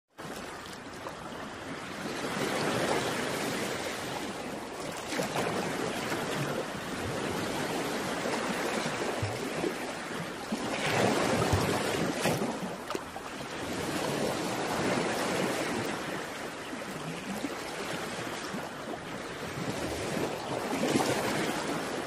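Sea surf washing against a rocky shore, a steady rush of water that swells and eases every few seconds.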